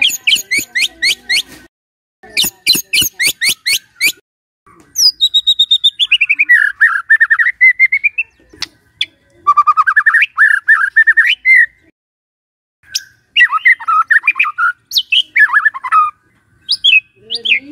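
White-rumped shama (murai batu) singing in loud bursts. It opens with rapid sharp clicking rattles, then gives long fast trills that sweep down and rise again, and ends with varied short phrases, with brief pauses between the bursts.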